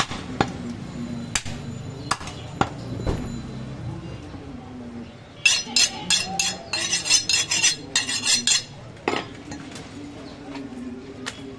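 A butcher's cleaver chopping on a wooden log block: a few separate chops in the first three seconds. About five seconds in comes a quick run of sharp metallic clinks and scrapes, several a second, lasting about three seconds.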